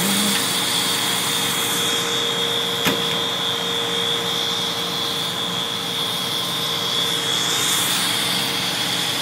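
Fire engines running steadily, a continuous engine drone with a steady high-pitched tone held over it. A single sharp click about three seconds in.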